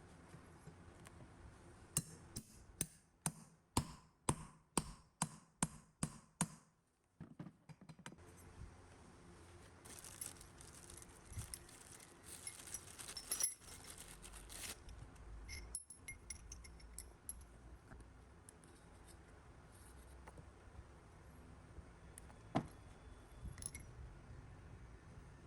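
Metal tools and parts being handled at a workbench: a quick run of about a dozen sharp metal taps, two or three a second, then a stretch of small metal pieces clinking and scraping together, and a single sharp knock near the end.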